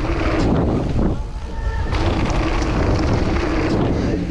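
Wind buffeting the microphone and the rumble of a mountain bike riding fast down a dirt trail, with a short thin whine about a second and a half in.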